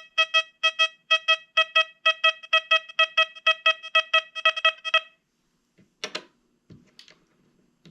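XP Deus 2 metal detector sounding its target tone over a 1937 Canadian King George coin: a quick run of identical pitched beeps, about four a second, that stops about five seconds in. A couple of faint clicks follow near the end.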